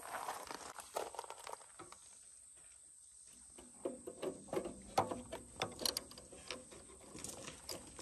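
Light scuffs, a pause, then from about halfway a run of irregular small metal clicks and knocks as a carburetor is handled and fitted against the intake of a Power King garden tractor's engine.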